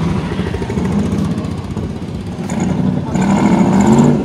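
Engines of passing vehicles: a motorcycle going by close, then an AC Cobra-style roadster rolling in slowly. The engine rises in pitch and grows loudest near the end.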